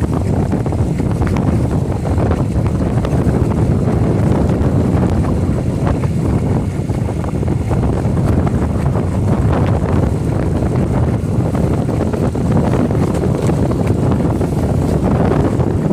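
Wind buffeting the microphone in a loud, steady low rumble with irregular gusts.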